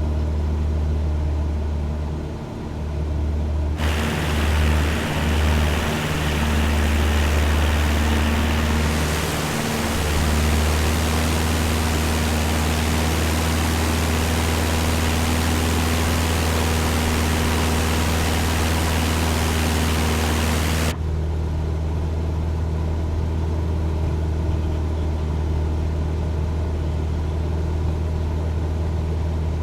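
Cessna 172's piston engine and propeller droning steadily in flight, heard from inside the cabin. From about four seconds in a loud rushing hiss joins it, cutting off abruptly around twenty-one seconds in.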